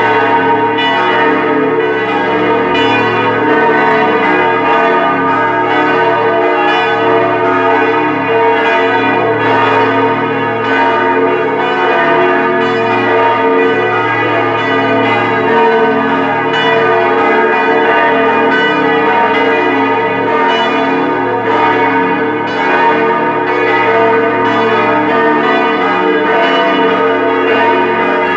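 A four-bell peal of Grassmayr-cast church bells, tuned B♭, E♭, G♭ and A♭, ringing together in a continuous, overlapping peal with strikes coming steadily throughout. It is the ringing that calls the faithful to Mass.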